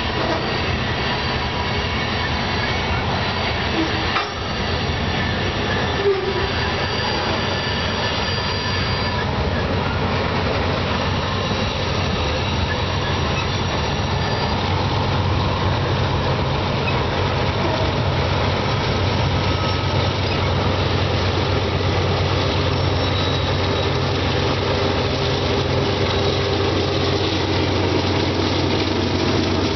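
Grain train covered hopper cars rolling through a tight curve with wheels squealing and clattering, and a sharp knock about six seconds in. From about halfway through, the steady low drone of the rear-end remote locomotive, a Canadian Pacific GE AC4400CW diesel, grows louder as it approaches.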